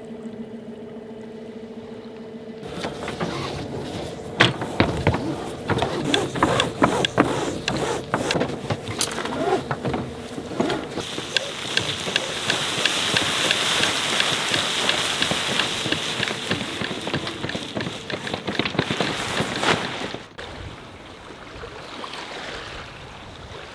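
1972 Pearson 36 sailboat underway under spinnaker in light wind: water rushing along the hull, with the spinnaker cloth flapping and rigging clattering in many sharp knocks. The rush grows louder and hissier from about the middle and eases off near the end. A steady hum at the start stops about three seconds in.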